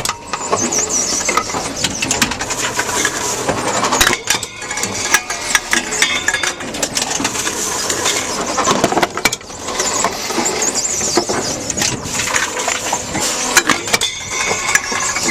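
Tomra Tx2 reverse vending machine taking in containers: a steady run of knocks and clatter as cans and plastic bottles go through, with short wavering squeaks.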